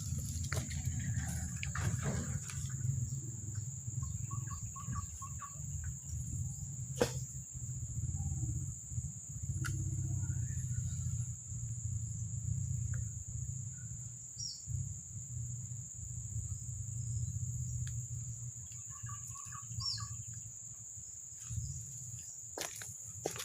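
Outdoor ambience by a fast stream: a steady high-pitched insect drone, a low steady rumble of rushing water, and short bird chirps twice. There is one sharp click about seven seconds in.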